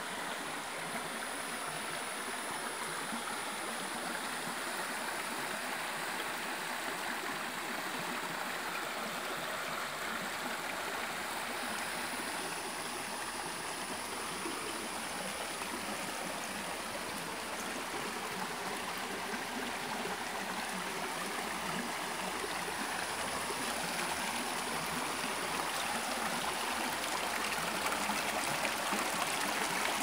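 Shallow spring-fed stream running steadily over rocks, a continuous rushing of water that grows somewhat louder near the end.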